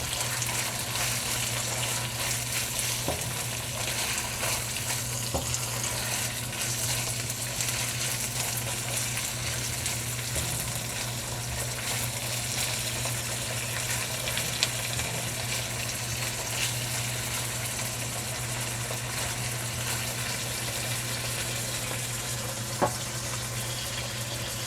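Chicken livers frying in oil with sautéed onion, garlic and ginger, a steady sizzle, with a few sharp clicks of a utensil against the pan and a constant low hum underneath.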